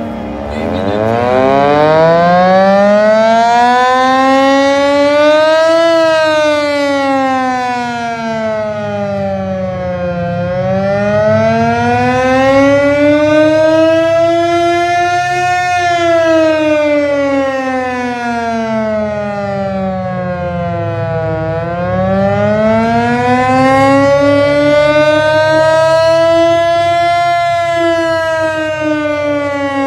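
Air raid siren wailing, its pitch rising and falling slowly, about once every ten seconds.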